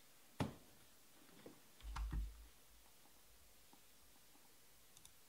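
Quiet room tone broken by two brief handling noises: a sharp knock about half a second in and a duller, deeper thump about two seconds in.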